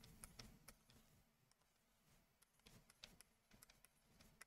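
Near silence: faint room tone with a few small, sharp taps of a stylus on a tablet screen as an equation is handwritten, several close together at the start, one about three seconds in and one near the end.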